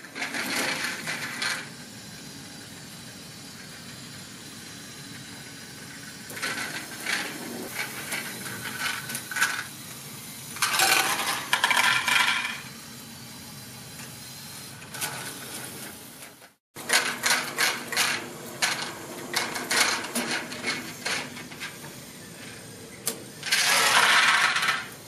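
Lego Technic great-ball-contraption machinery running with a steady motor-and-gear hum, broken by bursts of small plastic Lego balls clattering as they pour out of the tipped wagon and down the modules. The biggest pours come about halfway through and near the end, with a short gap in the sound between them.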